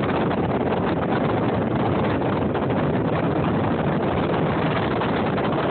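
Wind buffeting a phone's microphone: a steady rushing noise with no break.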